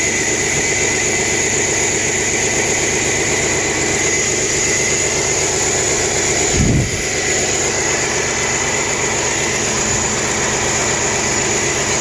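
Chevrolet S-10 pickup's engine idling steadily with the hood open, running with a miss that the owner puts down to a probable blown head gasket. A brief low thump comes a little over halfway through.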